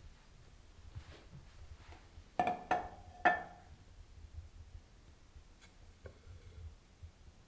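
Hard plastic soap dispenser and tumbler being handled and set down on a tray: three sharp clinks with a short ring between two and a half and three and a half seconds in, then a couple of lighter taps.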